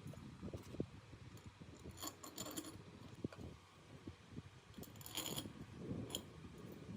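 Small metal parts and hand tools being handled: light clinks, taps and scraping, with two short clusters of sharp metallic clicks and a single click near the end.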